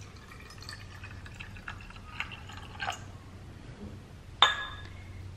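Water poured from a steel tumbler into a glass bowl of gel water beads, splashing and filling for about three seconds before stopping. About four and a half seconds in comes a single sharp clink with a brief ring.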